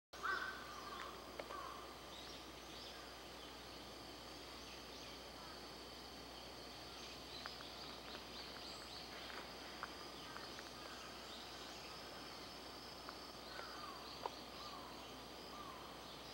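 Faint garden ambience: a steady high insect drone with short falling bird calls now and then, a cluster at the very start and more near the end, and a few soft clicks.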